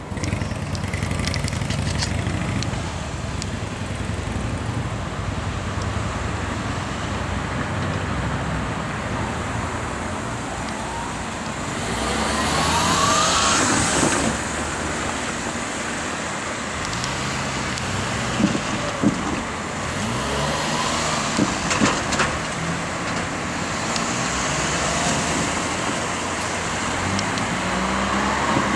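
Vehicle noise: a steady low rumble, with a rising whine and a hiss around the middle and a few sharp knocks a little later.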